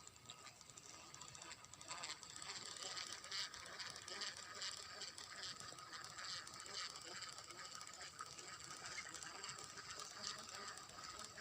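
Abu Garcia Pro Max 3 baitcasting reel being cranked to retrieve a lure, its gears giving a faint, continuous clicking.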